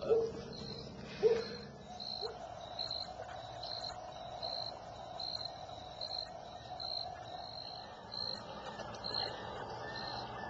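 Night-time woods ambience: a cricket chirping at an even pace, a little under two chirps a second, with a few short low hoots in the first couple of seconds.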